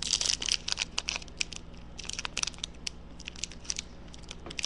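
Foil trading-card pack wrapper crinkling and crackling as a pack is handled, in bursts at the start and about two seconds in, with scattered crackles between.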